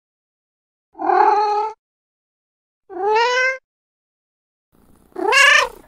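A domestic cat meowing three times, each call under a second long with silence between: the first fairly level, the second sliding upward, the third higher, rising and then falling away.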